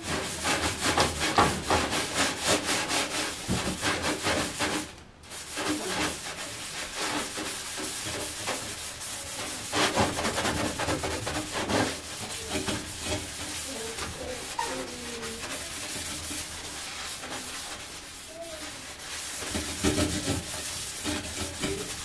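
Damp sponge with baking soda scrubbing built-up grease off a stainless steel stovetop, in quick repeated back-and-forth strokes, with a brief pause about five seconds in.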